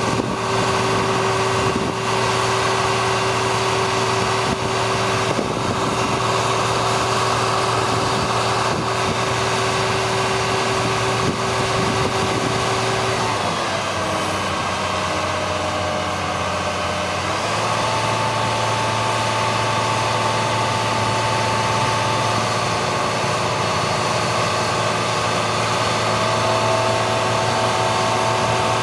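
A 1997 GMC C7500 digger derrick truck's engine runs steadily while the boom's hydraulics are worked. The pitch of its steady whine shifts about halfway through as the boom moves.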